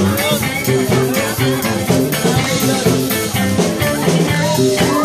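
Live rock cover band playing: a steady drum beat with bass and electric guitar.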